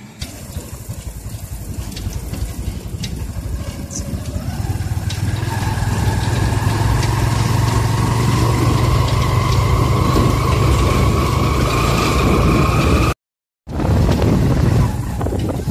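A vehicle's engine and road noise heard from on board while riding. The engine note rises steadily as the vehicle picks up speed from about four seconds in. The sound cuts out for half a second near the end.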